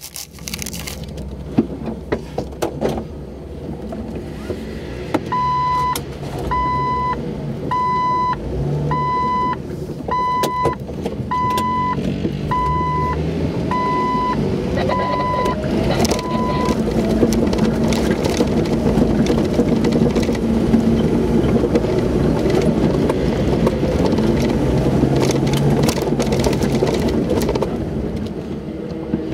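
Jeep Wrangler's engine running as it drives over a bumpy dirt trail, heard from inside the cab, with knocks and rattles. Partway through, a dashboard warning chime beeps about once a second, around ten times, then stops.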